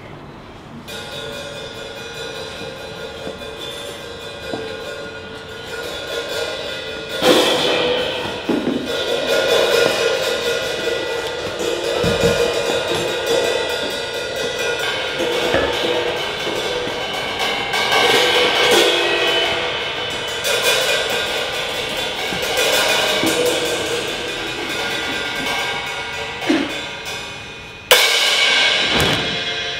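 Percussion music of ringing cymbals and drums, with loud crashes about seven seconds in and again near the end.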